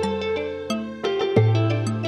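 Background music: a melody of plucked notes over long, low bass notes that change about once a second.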